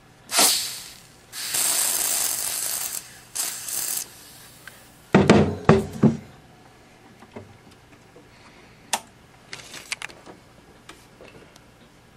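Aerosol freeze spray hissing onto the TV's degaussing thermistor to chill it: a short burst, then a steady spray of about a second and a half, then two more short bursts. About five seconds in come a few loud knocks, followed by scattered light clicks.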